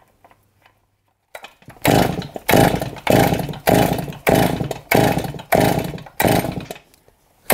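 A Stihl MS441 two-stroke chainsaw being cranked over by its pull starter with the spark plug out and a compression gauge fitted. It makes about ten quick rope pulls, roughly two a second, starting about two seconds in, each a whirring crank that fades off. This is a compression test on the engine, which reads a healthy 145 PSI.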